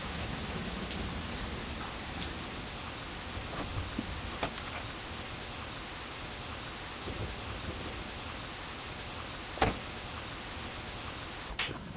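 Steady rain falling, with scattered sharp drips or ticks and one louder click near the end.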